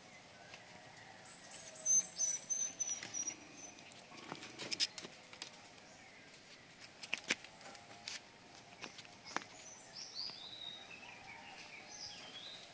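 Birds chirping in the background: a quick run of repeated high notes, then later a few falling chirps. A few sharp taps are heard in between.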